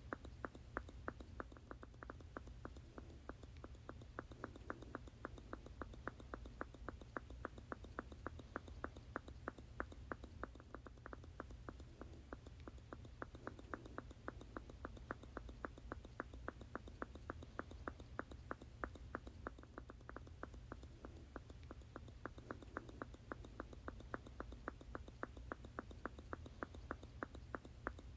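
Squeeze bottle squirting over and over in a quick, even rhythm, about three short squirts a second, over a faint low hum.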